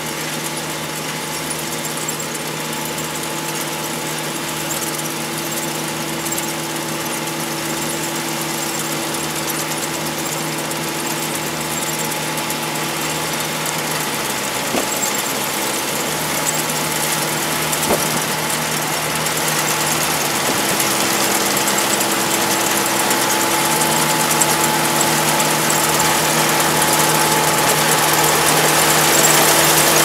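Iseki Japan 4075 combine harvester running as it cuts and threshes rice, its diesel engine a steady hum with a higher whine above it, growing steadily louder as the machine approaches. The engine note sags briefly about halfway through and again a few seconds later.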